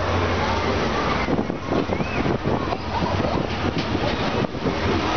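Wind rushing and buffeting on the microphone of a camera held out from a ferris wheel gondola, with a faint hubbub of fairground voices underneath.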